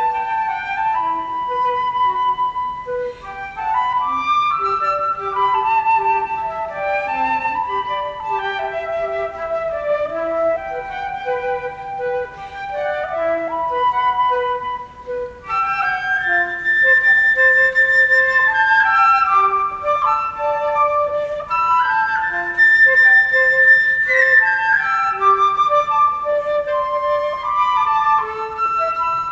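Two concert flutes playing a duet, two melodic lines moving against each other in held and stepping notes. About halfway through, the playing grows louder and climbs into a higher register.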